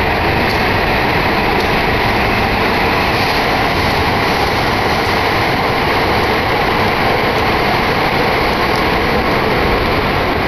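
Steady, loud rushing noise of a Shinkansen station platform beside a train standing at it, unchanging throughout.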